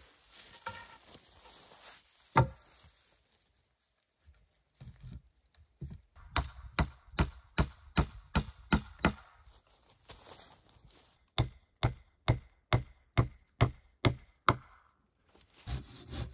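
An axe chopping into wood: one hard blow, then two runs of quick, even strikes, about three a second, with a pause between.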